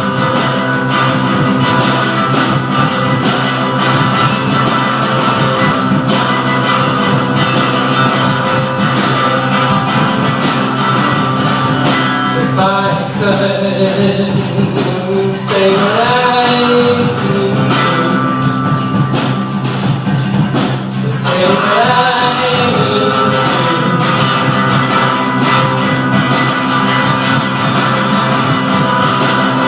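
Rock band playing: guitar chords over drums with a steady cymbal beat. A sung vocal line comes in about halfway through and again a few seconds later.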